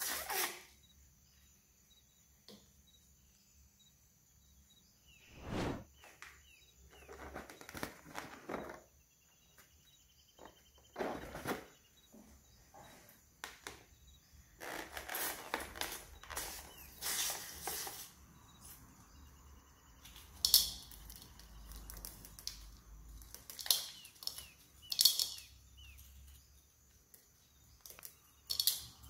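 Intermittent rustling and crinkling from hands handling rubber balloons, scissors and a plastic bowl of foam beads, in short separate bursts with quiet gaps between.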